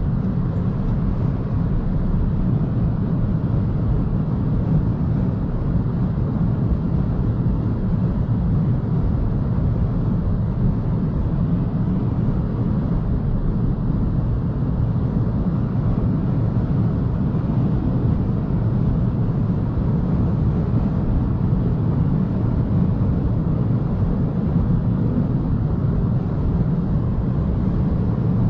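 Steady road and wind noise of a BMW i3 electric car driving at speed: a constant low rumble of tyres and air, with no engine note over it.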